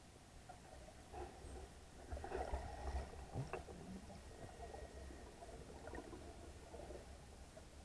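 Muffled underwater sound through a camera housing: a faint low rumble of moving water with scattered clicks and gurgles, busiest about two to three and a half seconds in.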